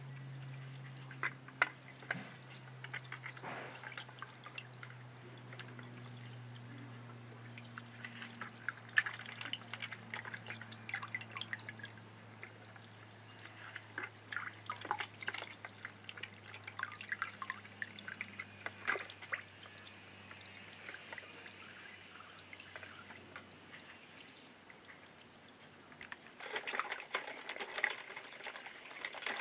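Water trickling and dripping through an Aqua Play water toy's plastic channels, with scattered small splashes and a low hum that slowly drops in pitch. Near the end the water rushes in more heavily.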